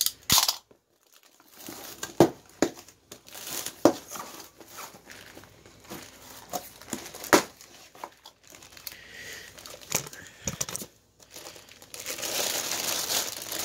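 A cardboard box being cut open and unpacked by hand, with scattered knocks, scrapes and rustles. Near the end comes a steady crinkling of the plastic bag wrapped around a new brake rotor.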